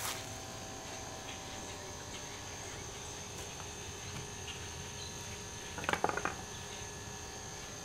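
Insects droning outdoors, a steady high-pitched buzz that does not change. There is a brief short noise about six seconds in.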